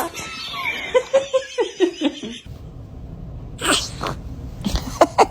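Newborn baby sneezing: one small sneeze about three and a half seconds in, then a quick run of little sneezes near the end, after a few short high voice sounds in the first two seconds.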